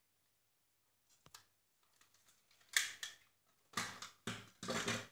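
Hard plastic clicking and rattling as an action camera is unlatched and taken out of its clear waterproof housing: a few small clicks, then three louder rustling, scraping bursts in the last two seconds that stop abruptly.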